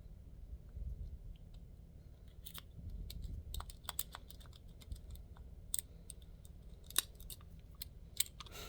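Metal lock pick working in a lock: irregular light metallic clicks and scrapes, busier a few seconds in, with two sharper clicks near the end.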